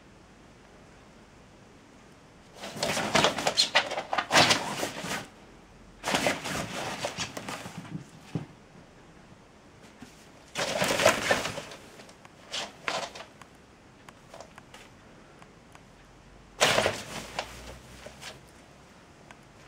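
Fabric pop-up play tent rustling and crinkling in several bursts of a second or two as a cat scrambles and thrashes about inside it.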